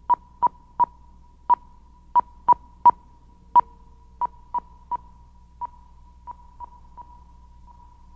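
A series of short electronic beeps, all at one pitch, coming unevenly two or three a second at first, then spacing out and growing fainter toward the end.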